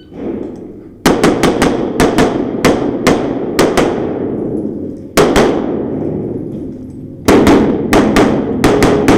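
Pistol shots fired in quick strings, mostly as fast pairs, each shot ringing out with a long echo. About a dozen come in the first three seconds, then a pair after a short pause, then another fast string near the end.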